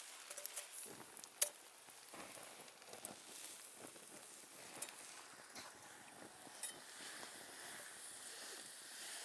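Faint hissing and crackling of a campfire, with scattered sharp pops, one louder about a second and a half in.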